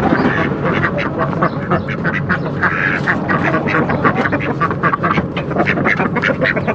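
A flock of backyard poultry calling excitedly at feeding time, a dense chatter of many short overlapping calls several times a second.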